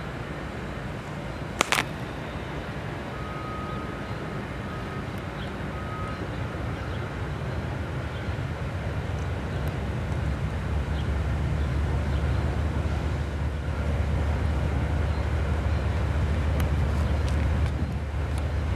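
Approaching Norfolk Southern diesel freight locomotive, its low engine rumble growing steadily louder through the second half. A single sharp click sounds about two seconds in.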